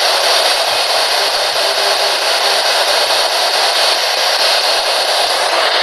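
Spirit box radio sweeping through stations, giving a loud, steady hiss of radio static.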